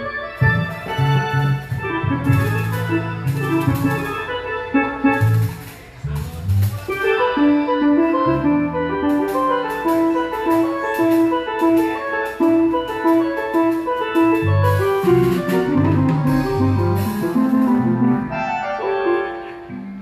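Live cumbia band playing in a sound check: an electronic keyboard carries the melody over bass notes, drums and percussion. The music dips briefly about six seconds in, then the keyboard settles into a repeating figure.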